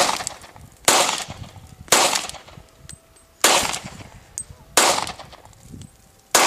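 Glock 22C .40 S&W pistol fired six times, roughly a second apart, with a slightly longer pause before the fourth shot and the last shot right at the end. Each sharp report trails off in a short echo.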